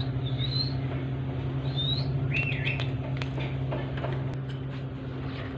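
A few short, high bird chirps, then a quick run of small sharp clicks as a parakeet's beak bites into a red chilli, over a steady low hum.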